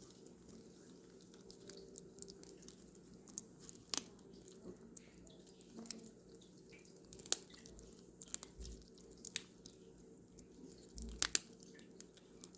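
Cats licking and eating churu, a lickable paste treat, close up: scattered small wet smacks and clicks at an uneven pace.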